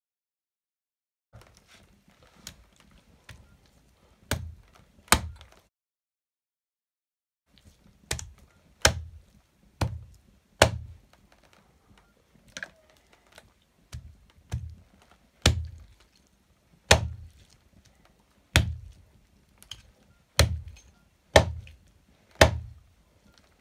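A heavy knife chopping bony buffalo meat on a wooden log chopping block: sharp chops with a deep thud, a few at first, then steadily about one a second. The first second and a stretch about six seconds in are silent.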